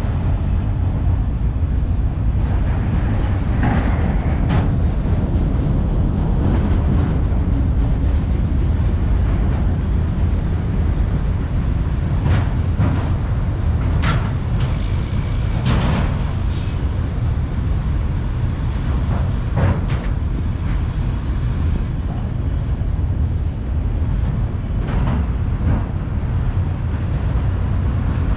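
Freight train of autorack cars rolling past at steady speed: a continuous deep rumble of wheels on rail, broken by brief sharp clanks and screeches scattered through it.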